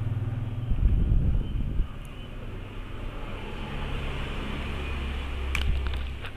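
A paper-wrapped pad rubbing plastic polarizer film down onto an LCD panel's glass, a low rumbling scrub loudest in the first two seconds. A few sharp clicks come about five and a half seconds in as the pad and film edge are handled.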